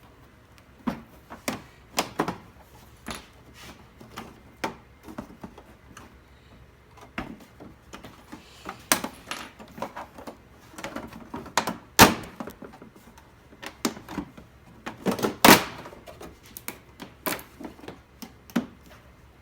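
Plastic back cover of a Samsung UN32J4000AF LCD TV being pried off, its molded snap-together clips popping loose in irregular clicks and cracks, with a couple of sharper, louder cracks in the second half.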